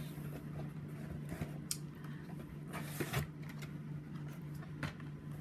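Handling noise from blister-carded Hot Wheels die-cast cars being taken out and handled: a few sharp plastic clicks and light rustles of card and plastic, over a steady low hum.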